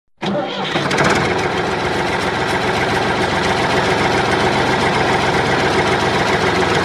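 Small geared electric motors of two homemade toy tractors running steadily under heavy load as they pull against each other, a dense mechanical grinding that starts abruptly just after the beginning.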